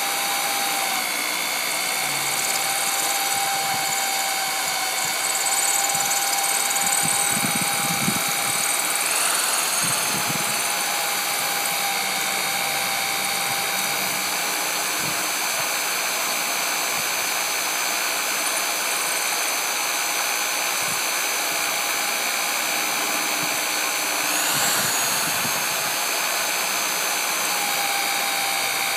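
Electric drill running steadily with a worn 1/8-inch bit boring slowly into a deadbolt's lock cylinder through the pin stacks. Its whine briefly rises in pitch twice, about a third of the way in and near the end.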